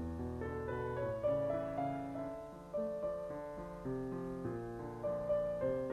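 Slow piano music: a gentle melody of single struck notes ringing over lower held notes.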